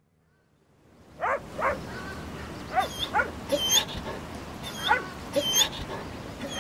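Small dog whining and yipping in a run of short, high, rising-and-falling calls, starting about a second in.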